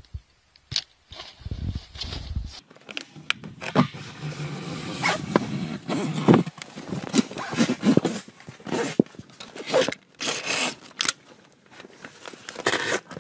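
Knife slicing through the PVC fabric of an inflatable boat's tube, in short, irregular, rasping strokes with small clicks.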